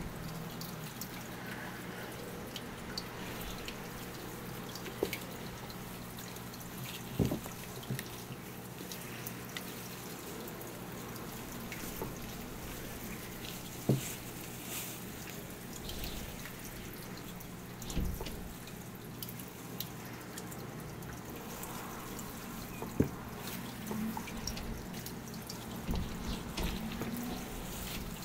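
Steady low hum with scattered soft clicks and taps, a few of them sharper and louder, like small drips.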